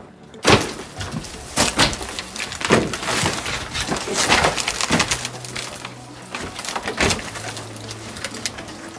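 Irregular knocks, scrapes and creaks of a person clambering through old wooden wall framing. A low steady hum comes in about halfway through.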